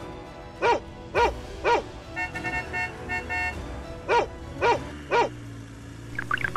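Small dog barking in two sets of three quick, high barks, with a few short beeping tones between the sets.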